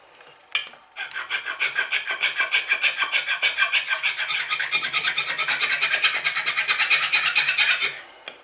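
A file rasping in quick, even strokes, about five a second, along the wooden bed of a wooden coffin smoothing plane: light strokes cleaning up the ramp. There is a short pause with a single click about half a second in, and the filing stops shortly before the end.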